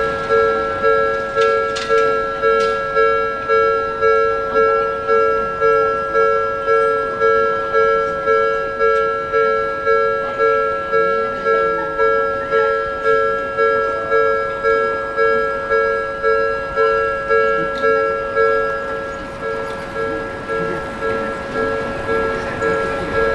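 Japanese railway level-crossing warning bell ringing, a repeating electronic ding at about one and a half strikes a second, sounding while the barrier is down for an approaching train.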